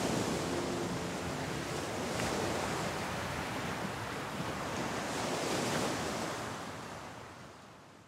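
Surf washing onto a beach, coming in slow surges, then fading out over the last couple of seconds.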